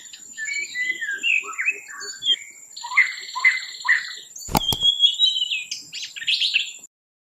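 A quick run of high, sliding chirping calls, with a sharp click about four and a half seconds in; the sound cuts off abruptly near the end.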